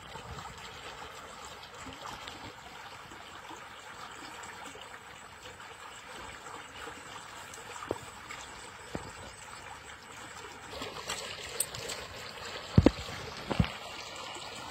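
Water in a narrow channel running and splashing steadily, with two sharp knocks about a second apart near the end.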